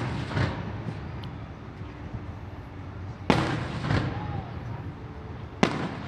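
Aerial fireworks shells bursting overhead: a sharp bang about three seconds in and another near the end, each followed a moment later by a second, duller boom.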